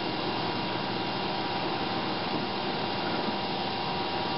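Vertical milling machine running steadily, its end mill taking a cutting pass along the edge of a metal workpiece.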